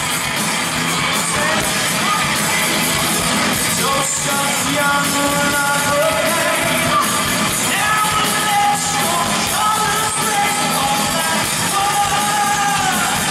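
Live rock band playing, electric guitars, bass and drums, with a male singer holding long sung notes over them.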